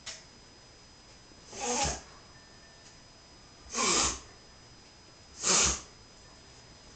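A pet wheezing in three short, breathy bursts about two seconds apart.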